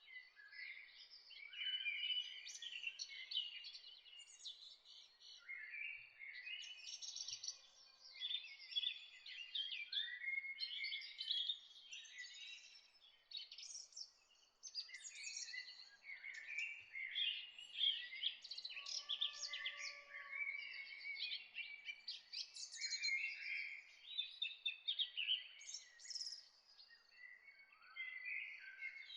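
A chorus of small songbirds chirping and trilling, several birds overlapping in quick, busy phrases with no pause, over a faint background hiss.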